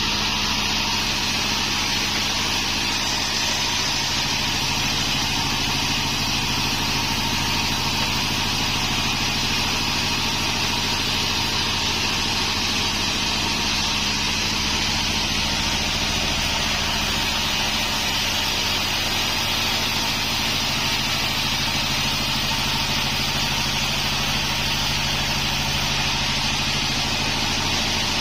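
Band sawmill running steadily: a constant engine hum with a steady hiss on top, unchanged throughout.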